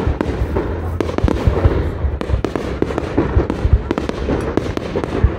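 A fireworks display going off in a dense barrage: many bangs and crackles in quick succession over a steady low rumble.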